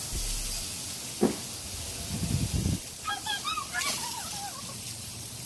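Steaks and ribs sizzling over an open wood fire: a steady hiss, with a knock about a second in and a few low thumps a little after two seconds. A few short high-pitched calls sound about three seconds in.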